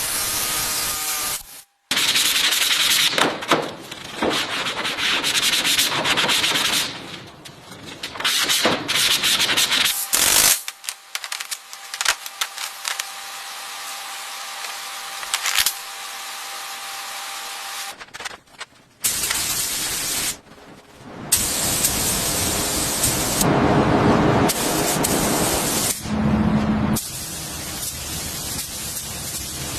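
Car body-work sounds in quick succession, mostly sanding and rubbing on the panels, changing abruptly every few seconds between clips.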